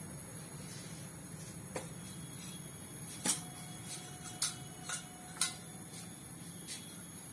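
Oil heating in a nonstick kadhai over a gas burner on high flame: a steady low hum with about seven sharp ticks scattered through the middle, the loudest about three seconds in, as the pan and oil heat up.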